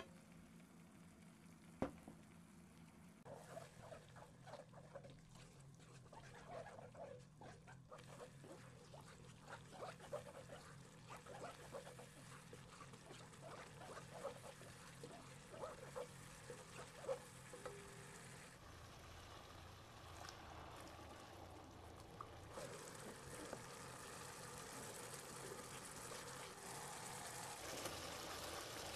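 Thick gochujang-and-oil sauce frying in a nonstick wok while a wooden spatula stirs it, making irregular wet squelches and pops, after a single sharp knock near the start. In the second half the stirring gives way to a steadier sizzle and bubbling of the sauce.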